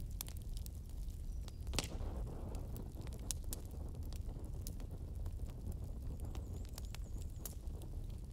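Crackling bonfire ambience: irregular pops and snaps over a steady low rumble, with one louder snap about two seconds in.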